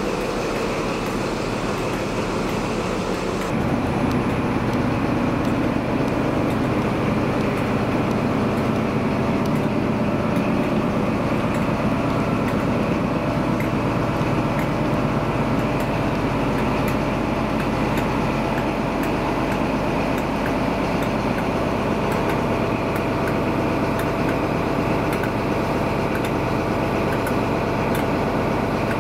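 Steady running noise of an HST (InterCity 125) train: a low rumble with a few faint steady tones above it, which shifts and grows slightly louder about three and a half seconds in.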